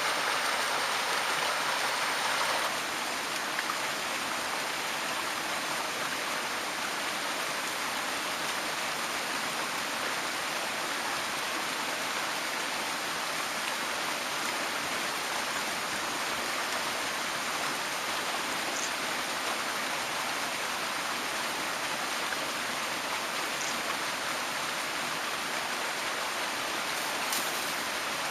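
Mountain stream water rushing and splashing steadily, a little louder for the first two or three seconds, with a few faint ticks.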